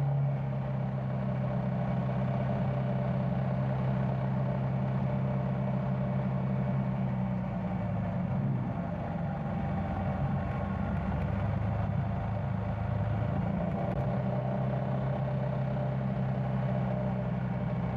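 Yamaha Tricity 300 three-wheeled scooter's single-cylinder engine running at low road speed, heard from the rider's position. The engine note dips about eight seconds in, then picks up again.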